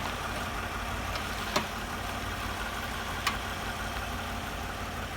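Toyota Highlander's suspension giving sharp clicks or cracks, two distinct ones about a second and a half and three seconds in, over the steady hum of the running vehicle. It is the crunching noise that persists despite new original struts and strut mounts, its cause unknown to the owner.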